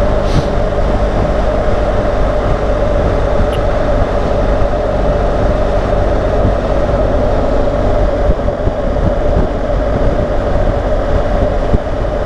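BMW GS adventure motorcycle cruising steadily at highway speed, its engine drone buried in heavy, continuous wind and road noise on the helmet-mounted microphone.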